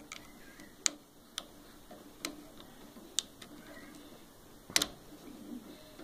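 Sharp, irregular small plastic clicks from a microwave control board's rotary encoder as it is worked apart by hand. There are about six clicks, and the loudest is a double click near the end.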